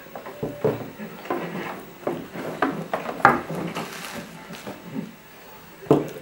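Irregular clicks, taps and knocks of small objects being handled and set down on a wooden box top, with one sharper knock near the end.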